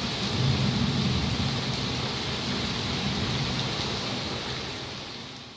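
Heavy rain pouring, a steady hiss with a low rumble underneath, fading out near the end.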